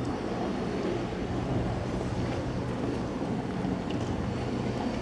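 Steady low engine rumble with a noisy hiss over it, like a vehicle engine running, with a few faint clicks.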